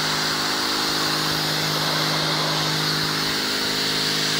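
Pressure washer running steadily: the spray jet hisses against the ribbed sheet-metal roof, with the steady hum of the washer's pump motor underneath.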